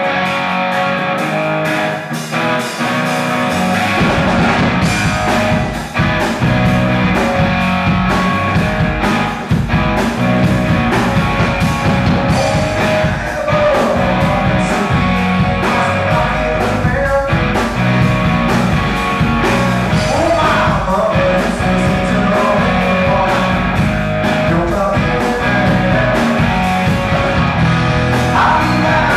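Live blues-rock band: electric guitar playing alone at first, then bass and drums come in about four seconds in, with a lead vocal over the full band.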